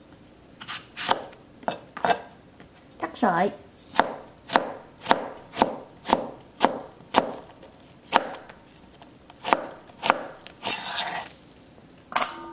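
Chef's knife cutting a green apple into thin strips on a plastic cutting board: crisp, regular knife strokes against the board, about two a second. A brief scraping sound follows near the end.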